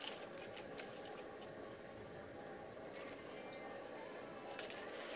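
Faint steady background hiss with a few soft clicks and rustles from hands handling the leaves of a potted plant and the phone held close to it.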